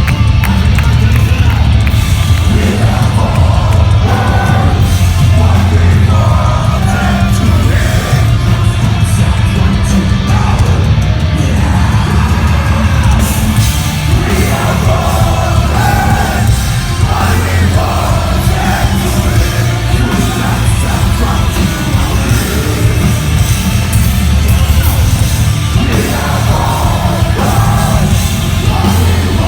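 A metalcore band playing live through a loud PA, with a heavy bass and drum low end and screamed and sung vocals.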